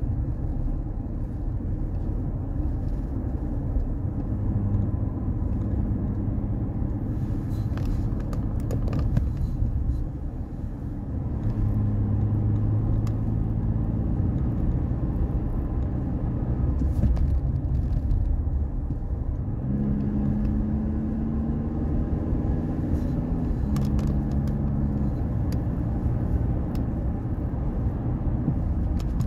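Car driving, heard from inside the cabin: a steady low road and engine rumble, with an engine hum that comes and goes and shifts a little in pitch.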